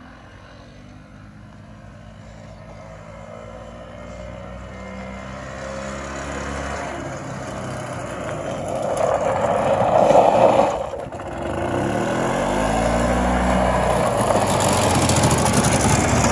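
Robins 244cc two-stroke engine of a 1987 EZ-GO Marathon golf cart, running as the cart drives up from a distance and growing steadily louder until it is loud and close by near the end, with a brief dip in level about eleven seconds in.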